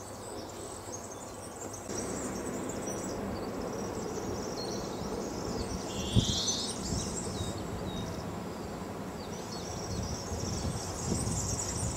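Outdoor ambience: small birds chirping and calling, high and brief, over a steady low background rumble that grows louder about two seconds in. A short low thump about six seconds in.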